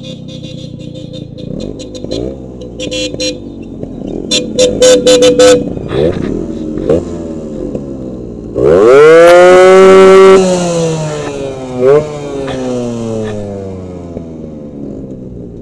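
Two-stroke Yamaha RX-series motorcycle engines running and revving as the bikes pull away, with short horn beeps a few seconds in. About halfway through, one engine revs hard, rising sharply and holding for nearly two seconds; this is the loudest sound, and it falls away afterwards.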